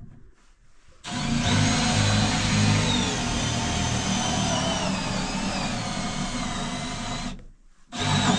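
Electric drill running under load for about six seconds, its pitch sinking a little as it works, then stopping and starting again for a short second burst near the end.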